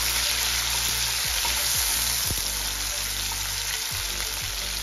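Chopped onion, tomato and green chillies sizzling steadily in hot oil in a steel kadai, stirred with a spatula that scrapes the pan a few times.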